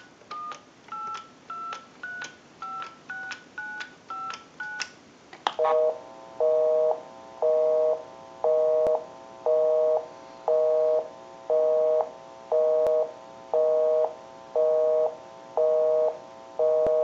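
Touch-tone keypad of a Northern Electric three-slot payphone dialing a number: about ten short two-tone DTMF beeps over the first five seconds. Then a busy signal, a low two-tone beep pulsing about once a second, because the number called is engaged.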